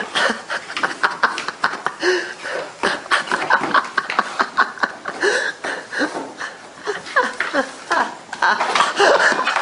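Dog pushing, scratching and biting at a cardboard box on a hardwood floor, with a rapid, irregular run of scraping, knocking and tapping as the box is shoved and the dog's claws hit the boards. A person laughs at times.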